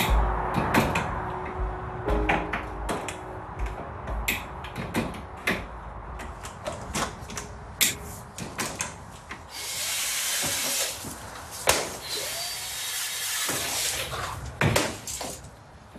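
Yellow plastic tubes being cut and handled on a workbench: a run of sharp clicks and clatters, with two stretches of steady hiss about ten and twelve seconds in.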